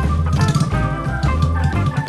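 Upbeat background music with a steady beat, pulsing bass and bright melodic notes.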